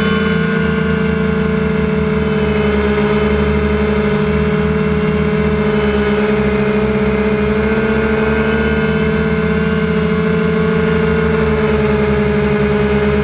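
Multicopter's electric motors and propellers whining steadily while it hovers, close to the onboard camera, with a stack of steady tones that wander slightly in pitch.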